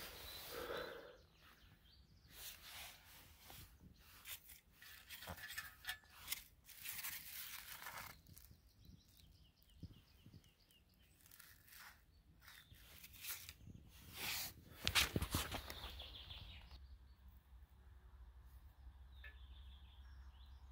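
Quiet rustling and scattered light clicks and knocks of hands handling dry birch bark, tinder and sticks, busiest in the middle and loudest a little past halfway. A faint steady low rumble takes over near the end.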